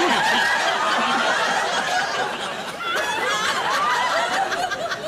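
Studio audience laughing in response to a sketch punchline, a broad swell of many voices that dies away near the end.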